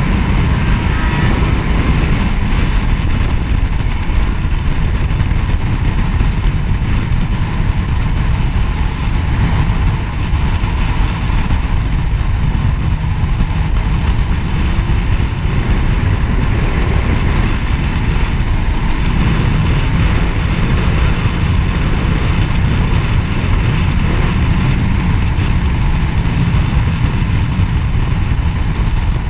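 Sport motorcycle cruising at road speed: a steady low rush of wind on the bike-mounted microphone with the engine running underneath.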